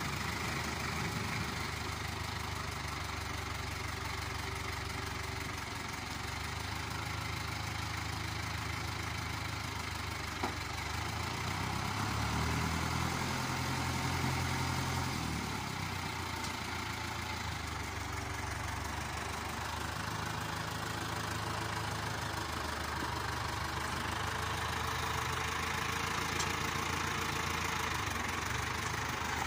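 International Harvester 584 tractor's four-cylinder diesel engine running steadily, its revs rising for a few seconds around the middle as the loader bucket pushes into the oat heap. A single sharp click comes about ten seconds in.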